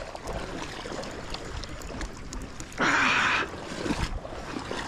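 Steady wash of river water around a wading angler, with a brief, loud rush of noise lasting under a second about three seconds in.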